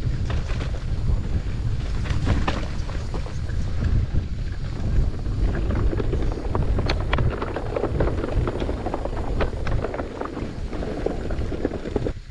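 Wind buffeting an action camera's microphone while a mountain bike rides rough trail, with a steady low rumble and many quick clicks and knocks of the bike rattling over the ground. It drops off suddenly at the end.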